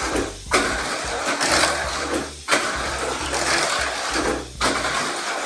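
Tamiya Mini 4WD car running on its plastic track: a steady buzzing whine from its small electric motor and gears, with the rattle of wheels and rollers along the track. About every two seconds the sound drops away briefly and comes back sharply.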